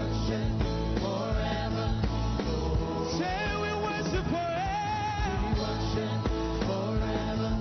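Music with a lead voice singing over a steady band accompaniment with a strong bass line.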